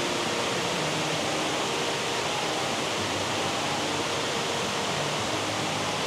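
Waterfall stream rushing steadily over rocks and rapids.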